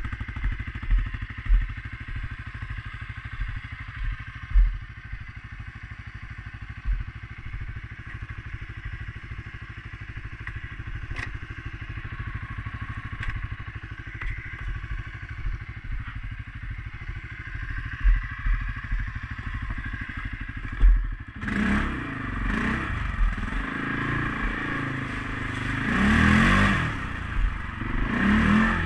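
CFMOTO CForce 500S ATV's single-cylinder engine running at low speed, with scattered thuds and clatter over rough trail. About 21 seconds in, the engine gets louder and revs up and down repeatedly.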